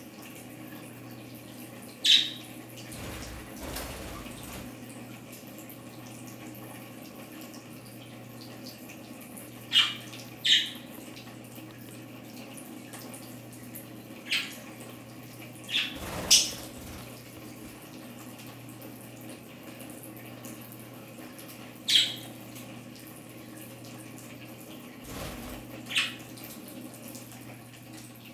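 Water trickling and dripping steadily from a bird-shower ring onto lettuce in a plastic tub, under a low steady hum. Budgerigars give about eight short, sharp calls spread through it, the loudest sounds here.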